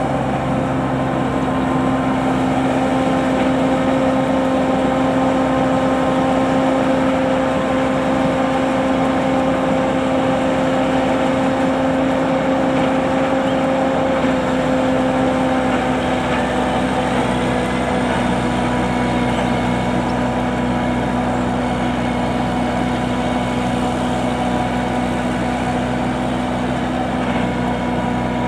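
Engine of a homemade Vietnamese combine harvester running steadily, its pitch settling slightly lower about halfway through.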